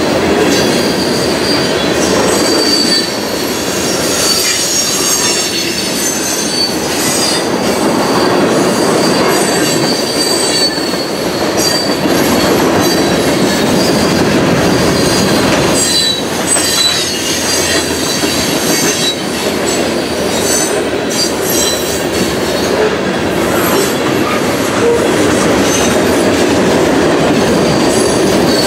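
Freight train of covered hopper cars rolling past close by: a loud, steady rumble of steel wheels on rail, with a thin, wavering high wheel squeal over it and a few sharp clacks as wheels cross rail joints.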